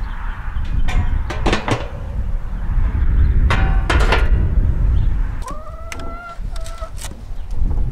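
Sheet-steel drum and lid of a barrel smoker clanking as they are set down, several sharp metallic knocks with a short ring. A drawn-out call in two parts, rising at the start, follows about five and a half seconds in, over a low rumble of wind on the microphone.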